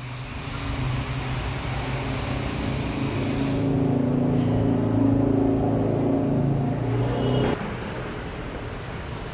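An engine running steadily with a low hum, which cuts off suddenly near the end.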